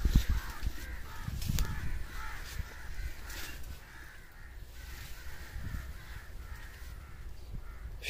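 Crows cawing over and over in the background, with the rustle and footfalls of someone pushing through brush.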